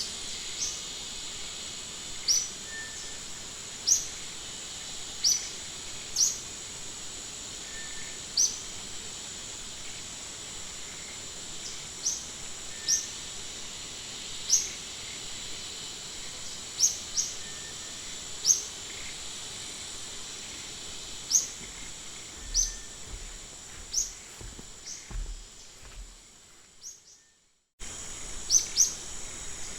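Outdoor nature ambience: a steady high-pitched insect-like drone with short rising bird-like chirps repeating every second or two. The sound dips out briefly near the end, then resumes.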